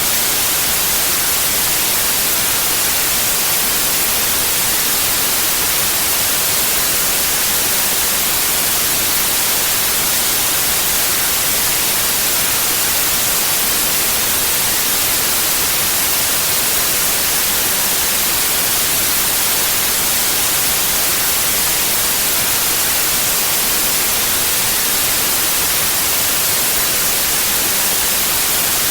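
Steady white noise: an even, unchanging hiss, brightest in the highs.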